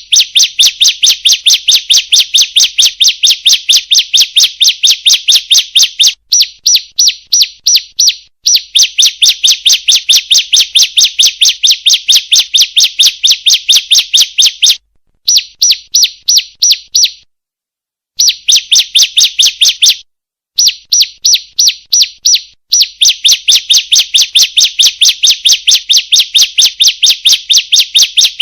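Female bar-winged prinia (ciblek) calling: a fast, even run of high sharp chips, about five a second, in long bursts broken by brief pauses. It is a lure call meant to set caged ciblek singing.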